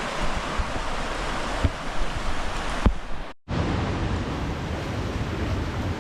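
River water rushing in a steady, dense hiss, with a few low knocks. It drops out for a moment a little past halfway, then carries on.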